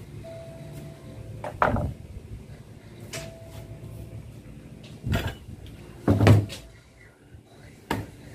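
Aluminium sliding-window frame knocking and clacking as it is handled and turned over, about five sharp knocks, the loudest a little after six seconds in.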